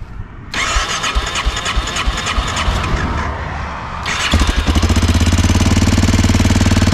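Honda NX650 Dominator single-cylinder four-stroke engine cranks for about three and a half seconds, catches about four seconds in, and settles into a loud, fast-pulsing idle. The running engine carries the abnormal mechanical noise from its known engine fault, which is still there after the bike has cooled down.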